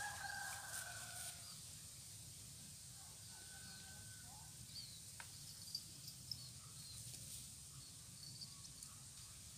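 Quiet rural outdoor ambience: a rooster crowing faintly in the first second or so, small birds chirping now and then, and a steady high insect hum, with a single sharp click about five seconds in.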